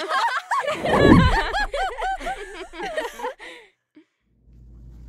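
Laughter, quick repeated snickering and giggling, with a deep sound falling in pitch about a second in, the loudest moment. The laughter stops a little past halfway, and after a brief silence a low steady hum comes in.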